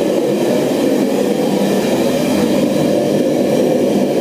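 Steady low mechanical roar with a constant hum, like a running fan or blower, unchanging throughout.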